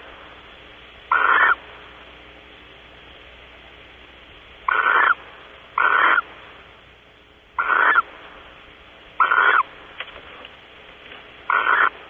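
Barn owl calling: six short calls, each under half a second, spaced irregularly a second to three seconds apart.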